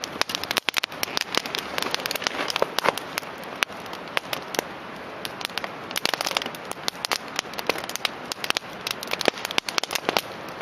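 Wood campfire burning: a steady hiss with dense, irregular snaps and pops of burning wood, several a second.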